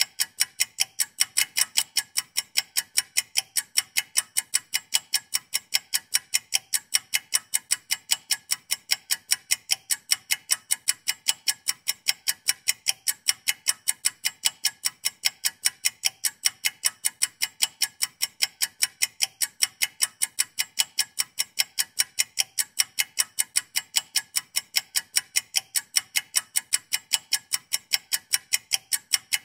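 Countdown clock ticking rapidly and evenly: the timer running for a 45-second challenge.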